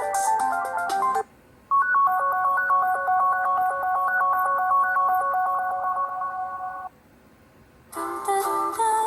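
Ringtones on a ZTE ZFIVE C phone, played one after another. One ends about a second in, a short electronic melody of repeating notes plays for about five seconds, and after a second of silence another ringtone starts near the end.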